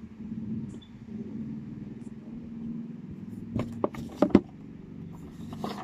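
Handling noise: a cluster of sharp knocks and clacks about three and a half to four and a half seconds in, and a few more near the end, as a cardboard phone box is handled and set down. Under it runs a steady low hum.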